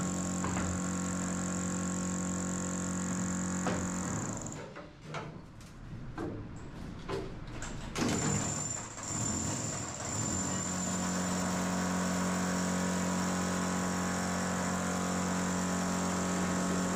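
A steady mechanical hum, held on one unchanging pitch. About four seconds in it drops away for several seconds, and a few sharp knocks and scrapes come through, the loudest near the eight-second mark, before the hum returns.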